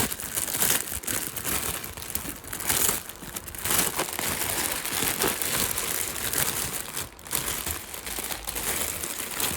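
Plastic wrapping of a multipack of instant noodles being torn open and handled, with continuous irregular crinkling and rustling.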